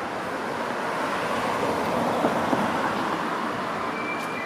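A vehicle passing along a wet street, its tyres hissing on the rain-soaked pavement; the noise swells towards the middle and eases off again.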